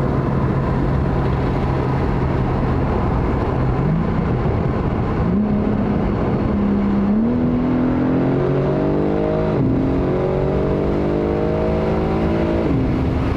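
BMW M3 Touring's twin-turbo inline-six with an aftermarket exhaust, heard from inside the cabin with a window open: it runs steadily, then accelerates, the note climbing in pitch and dropping back at upshifts about ten seconds in and again near the end, over road and wind noise.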